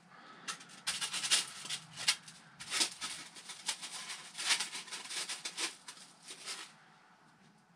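Foam model-fuselage sections rubbing and scraping against each other and against the hands as they are fitted together and handled: a run of short, scratchy squeaks and rustles that dies away near the end.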